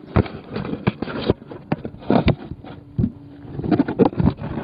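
Handling noise on an iPod's built-in microphone as the device is picked up, turned over and pressed against a jacket: irregular knocks and clicks with rubbing between them.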